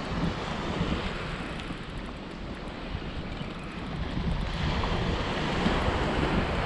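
Wind buffeting the microphone over the hiss of small surf washing up the beach, the hiss swelling louder after about four seconds.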